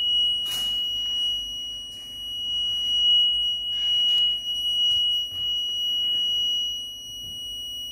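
A steady, high-pitched electronic buzzer tone sounds without a break, swelling and fading in loudness. A few soft handling rustles sound about half a second in and about four seconds in.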